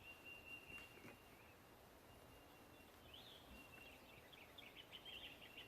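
Near silence: faint outdoor ambience with a thin, high, steady trill that turns into a quick run of short high chirps near the end.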